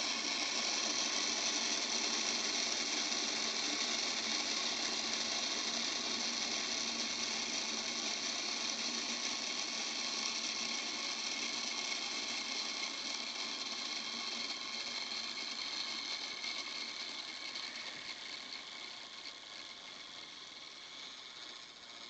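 Clockwork automaton's brass clock movement running: a fast, steady whirring and ratcheting of gears, fading over the last few seconds.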